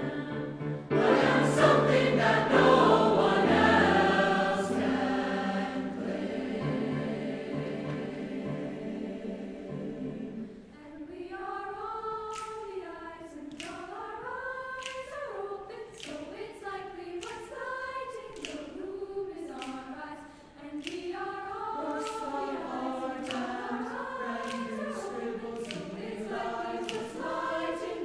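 Mixed SATB youth choir singing a choral piece: full and loud with low voices at first, fading over about ten seconds. After a brief break about eleven seconds in, a lighter, higher passage follows with moving vocal lines and clearly sung consonants.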